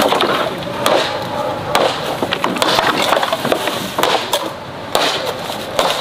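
Dead wooden poles knocking and clattering against each other and the log pile as they are handled, in a series of sharp knocks, with rustling of brush between.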